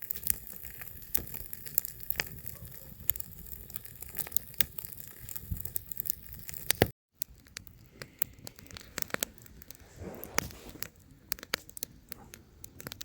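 Wood campfire burning and crackling, with irregular sharp pops and snaps over a soft hiss; the sound drops out for a moment about seven seconds in.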